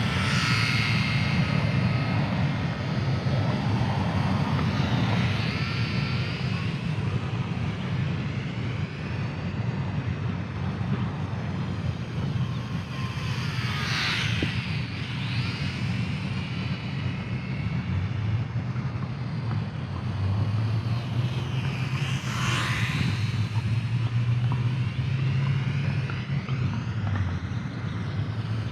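Whine of a micro electric RC warbird's motor and three-bladed propeller as it circles, rising and falling in pitch as it sweeps past close by, most sharply about 14 s and 22 s in. A steady low rumble runs underneath.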